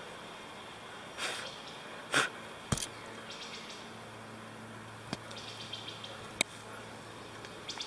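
Rustling and a few sharp snaps of dry leaf litter and twigs underfoot in woodland, with a faint low hum in the background for a few seconds in the middle.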